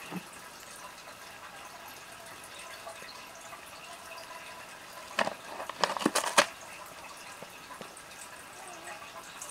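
A cat chewing and tearing a sheet of paper: faint at first, then a short burst of crackling, crinkling paper sounds about five seconds in, lasting a second or so.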